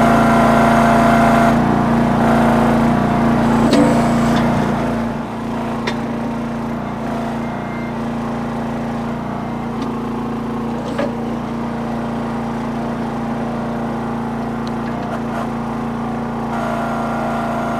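Small engine of a Red Rock/Trencherman towable backhoe running steadily while it digs, easing off slightly about five seconds in, with a couple of faint knocks.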